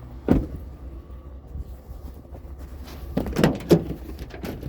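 A vehicle idling with a steady low hum, a sharp knock about a third of a second in, and a couple of louder knocks or clunks about three and a half seconds in.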